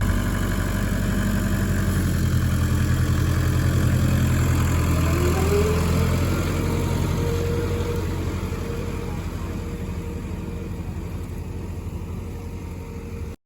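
An engine running steadily with a fine rapid throb. It grows louder over the first few seconds and then slowly fades. About five seconds in, a whine rises in pitch and then holds steady.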